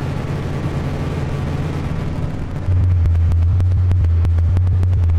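Electronic noise music: a dense low rumbling drone with a noisy haze above it. About two and a half seconds in the drone jumps louder and a fast, irregular crackle of clicks joins it.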